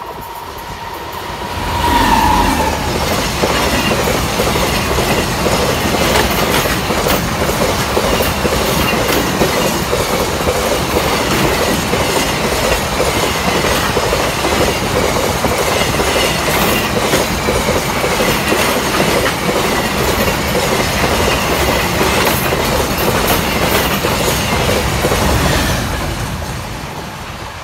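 Freight train behind a WAG-9 electric locomotive passing at speed. A steady tone ends as the locomotive goes by about two seconds in. Then comes a long, loud, even rush of wheel clatter and squeal from the empty container flat wagons, which eases off near the end as the brake van passes.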